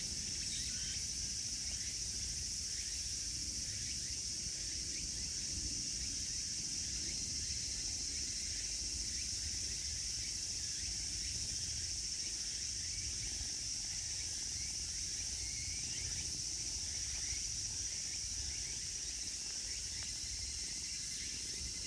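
Insects chirring in a steady, high-pitched outdoor chorus, over a low, even rumble.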